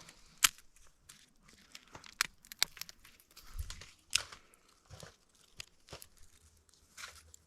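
Sparse rustling and crackling with a scatter of sharp clicks and snaps, the loudest about half a second in.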